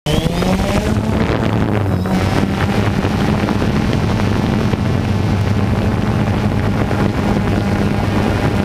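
DJI Phantom 2 quadcopter's electric motors and propellers spinning up for takeoff, rising in pitch over the first half second, then a steady buzz as it lifts off and flies. It is heard close from the camera mounted on the drone.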